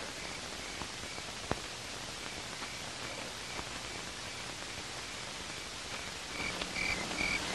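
Crickets chirping at an even pace, about two chirps a second, over a steady hiss. The chirps grow louder near the end.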